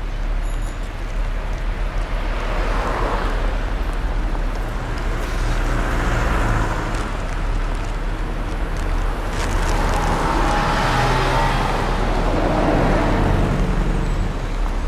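Road traffic on a city street: a steady low rumble with a few vehicles passing one after another, each rising and fading over a couple of seconds.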